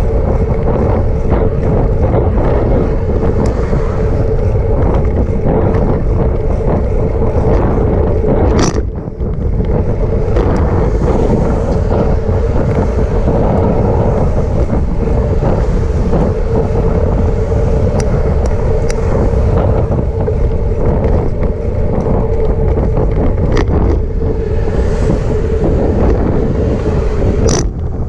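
Wind rushing over the microphone of a moving bicycle, with a steady hum underneath; the wind drops briefly about nine seconds in.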